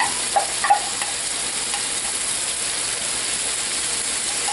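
Ground beef, onions, carrots and celery sizzling steadily in a frying pan, with a few short clinks in the first second.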